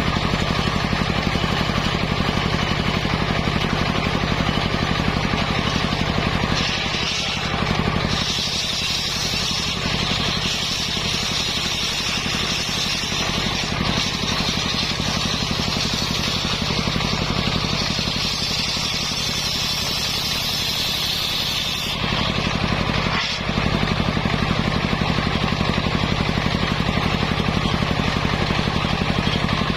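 Engine of a mobile circular sawmill running steadily. From about seven seconds in to about twenty-two seconds, a high hissing whine joins it as the circular blade cuts through a coconut-palm log. The engine then runs on alone.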